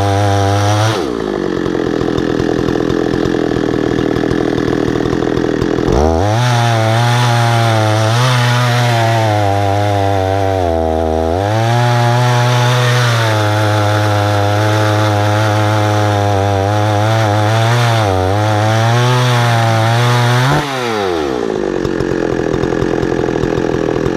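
Husqvarna 288 two-stroke chainsaw in an Alaskan chainsaw mill, ripping a tulip poplar cant lengthwise into planks. The engine revs fall off about a second in, come back up to full throttle about six seconds in and waver as the chain works through the cut, then fall off again near the end.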